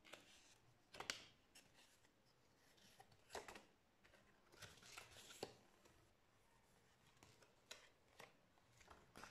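A folded paper instruction leaflet being unfolded by hand: soft paper rustles and crisp crackles, coming in a scattered series of short sounds.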